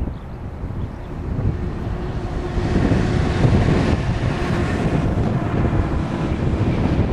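Airbus A340-300's four CFM56 jet engines at takeoff thrust, a rumbling jet roar that swells and grows brighter about two and a half seconds in as the airliner accelerates away down the runway. Wind buffets the microphone.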